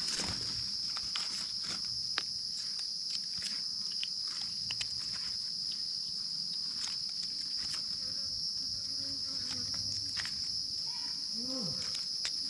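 A steady high-pitched drone of forest insects, with scattered light clicks and crackles throughout.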